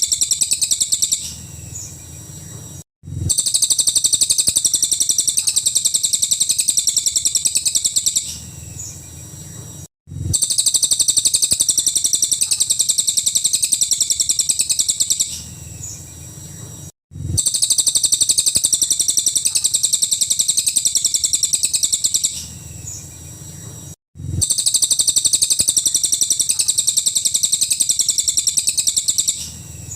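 Cililin songbird singing 'full nembak' bursts: long, loud, very rapid high-pitched trills of about five seconds each, with softer calls between them. The same phrase repeats about every seven seconds, with a short break of silence, as a looped recording.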